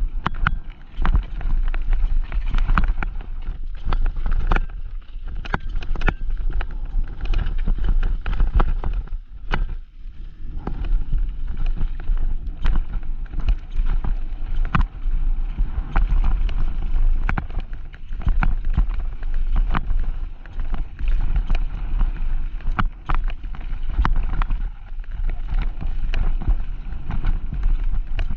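Mountain bike descending a rough trail: tyres on dirt, with the bike's frame and chain rattling in many sharp knocks, over a steady wind rumble on the microphone.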